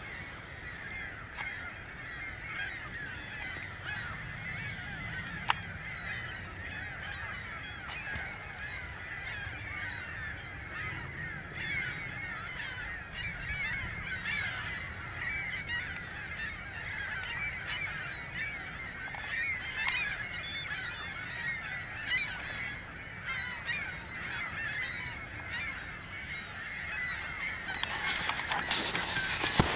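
A large flock of waterfowl honking continuously, many calls overlapping in a dense chorus, over a low rumble. A burst of louder noise comes near the end.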